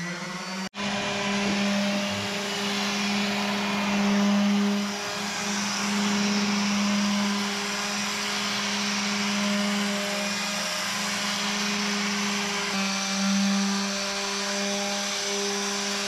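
Small electric palm sander running steadily on a wooden tabletop: a constant motor hum over the rasp of the sandpaper on the wood, scuff-sanding the varnished wood between coats so the next coat will stick. The sound drops out briefly less than a second in.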